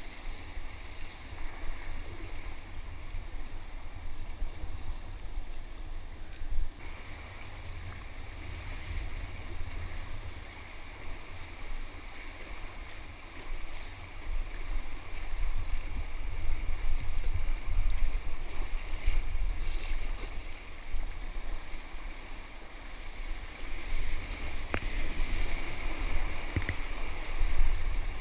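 Whitewater rapids rushing and splashing around an inflatable kayak, swelling and easing as it rides the waves, over a steady low rumble. Two sharp clicks come near the end.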